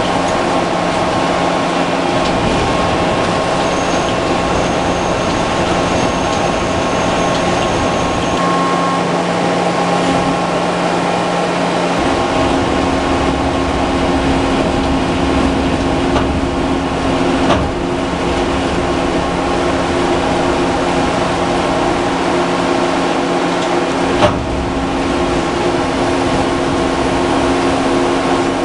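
Antraquip AQM175 roadheader cutting into rock: a loud, steady mechanical drone from the rotating cutter head and the machine's drive, its hum shifting higher partway through. Two sharp knocks come in the second half.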